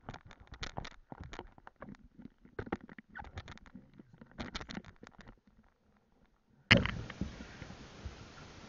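Lake water sloshing and splashing at the surface next to the camera, heard as irregular small splashes and knocks. About seven seconds in, the sound cuts suddenly to a steady hiss.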